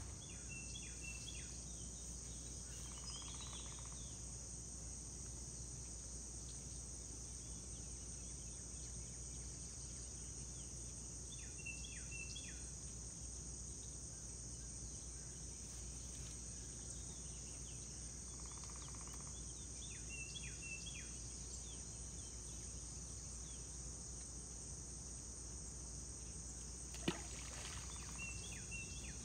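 Steady high-pitched insect chorus over a low, even rumble, with short chirps a few times. A single sharp click comes near the end.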